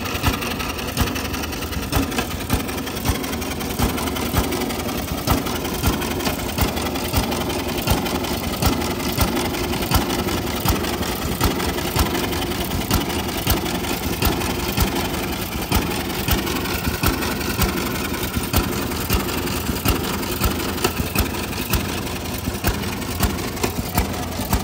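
Small 1920s hit-and-miss engine on a reel mower running, firing in sharp, irregularly spaced pops about one to two a second over a steady engine drone.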